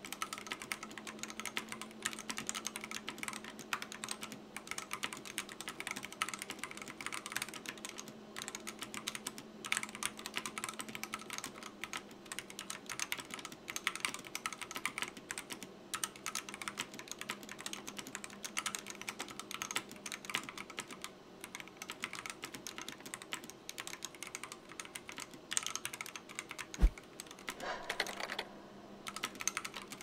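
Continuous typing on a Monstargear Ninja71 mechanical keyboard fitted with pre-lubed C3 Equalz Banana Split linear switches, the board sitting directly on a wooden desk without a desk mat. A single sharp thump near the end stands out above the keystrokes, followed by a brief pause in the typing.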